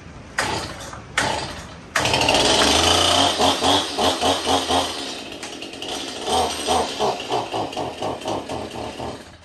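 Small Stihl two-stroke chainsaw revving: two short throttle blips, then held at high revs and surged on and off the throttle about three to four times a second. It stops running just before the end.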